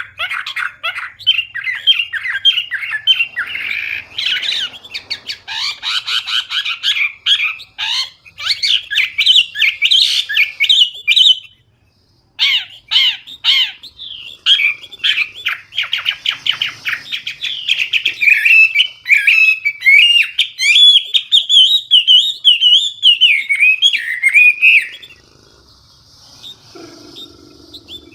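Chinese hwamei (Garrulax canorus) singing loudly, a fast run of varied whistles, trills and rising-and-falling notes with a short break about 12 s in. The song stops about 25 s in, leaving only faint sounds.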